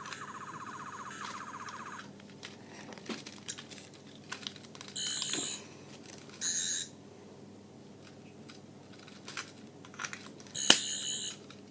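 Toy sonic screwdriver (12th Doctor touch-control model) sounding its electronic effect: a fast pulsing buzz for about two seconds, then short electronic bursts three more times, with small clicks from handling.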